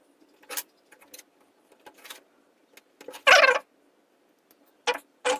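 Small clicks and scrapes of tools working a flex-cable connector loose inside a Redmi 4A smartphone. About three seconds in there is one louder, short squeak-like scrape, and two short scrapes follow near the end.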